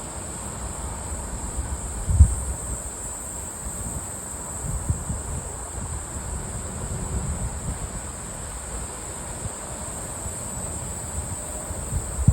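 Wind gusting across the microphone in low buffets, strongest about two seconds in and again near the end, over a steady high chirring of insects.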